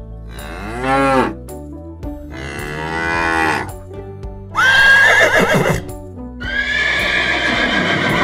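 Cow mooing twice, then a horse whinnying from about four and a half seconds in, loudest there, over light background music.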